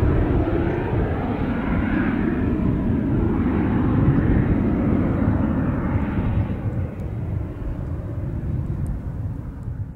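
Cessna Citation CJ2's twin Williams FJ44 turbofans at climb power after takeoff: loud, steady jet noise that begins to fade about six seconds in as the aircraft climbs away into the distance.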